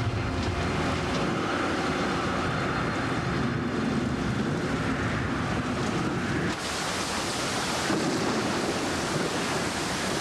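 Storm noise: a steady rush of wind and rain with gusts swelling and fading. About six and a half seconds in, the hiss turns brighter and harsher.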